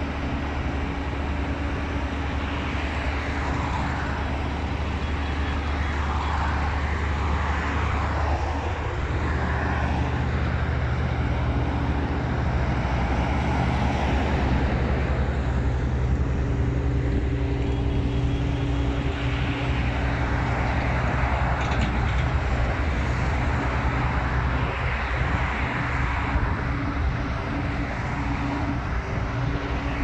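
Diesel engines of an asphalt paver and a skid-steer loader running steadily, their low pitch shifting slightly about nine seconds in. Traffic passes now and then on the adjacent road.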